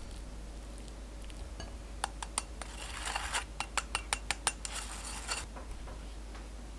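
Metal spoon clicking and scraping against a fine-mesh stainless sieve, pushing powdered sugar through into a glass bowl: a quick run of sharp light clicks with a gritty scratching between them, starting about two seconds in and stopping a little after five seconds.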